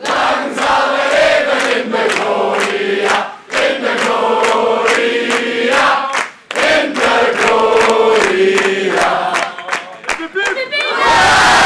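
A large crowd of men, women and children singing a song together, clapping their hands in time. Near the end the song breaks into shouts and a loud cheer.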